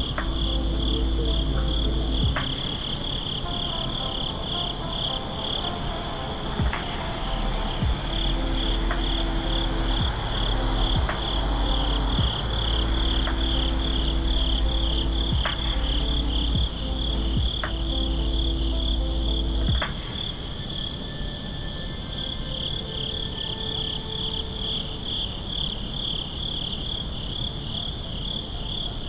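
Crickets chirping in a steady, high-pitched pulsing trill, over a low steady hum that drops away about two-thirds of the way through.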